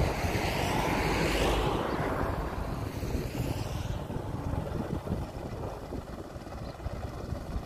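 Small motorboat engine running as the boat passes across the water, loudest at first and fading away after about four seconds.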